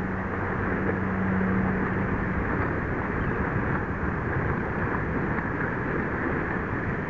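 Steady rushing wind noise on the microphone at the water's edge, with a low engine hum that fades out after about two and a half seconds.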